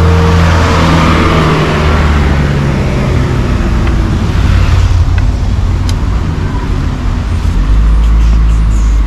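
Road traffic: a motor vehicle's engine running close by with a steady low hum, while a passing vehicle's noise swells at the start and fades over the first few seconds.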